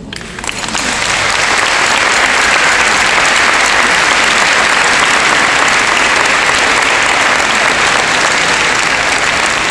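Audience applauding at the end of a piece, breaking out and building over about the first second, then steady and loud.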